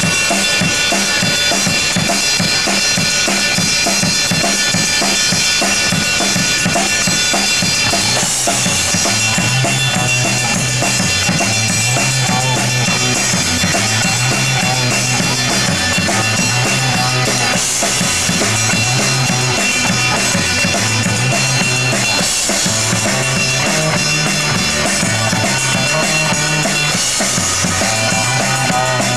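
Live rock band playing: a drum kit with bass drum and snare keeping the beat under electric guitars. About eight seconds in, a low repeating bass line joins, stepping up and down.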